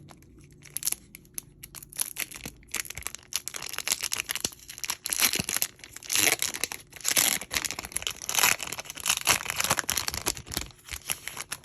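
A Panini basketball trading-card pack wrapper being torn open and crinkled by hand, a dense run of crinkling rustles.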